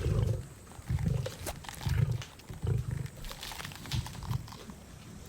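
Lions growling over a carcass while they feed: short, deep growls about once a second, mixed with sharp clicks and cracks of eating.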